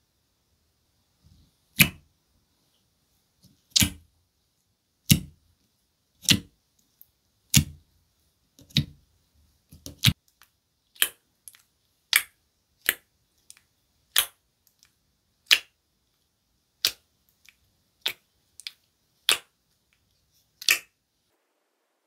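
Fingers poking into thick aloe soothing gel in a plastic tub, each poke giving a sharp wet pop. There are about seventeen pops, roughly one a second, with quiet between them.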